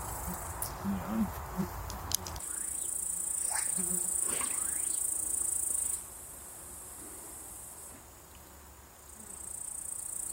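Insects shrilling in tall grass: a steady high-pitched buzz that starts about two seconds in, stops abruptly about six seconds in and comes back near the end.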